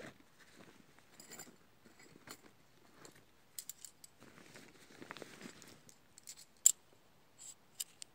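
Rummaging in a backpack: fabric rustling with light clicks and clinks, and one sharp metallic click about two-thirds through as metal tent pegs are taken out.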